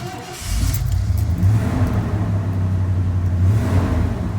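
Ford F-150 pickup engine starting up and then running with a steady low drone.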